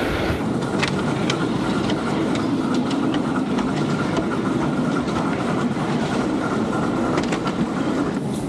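Miniature-railway train running along small-gauge track, heard from on board close to the wheels: a steady rumble with scattered sharp clicks as the wheels pass over the rail joints.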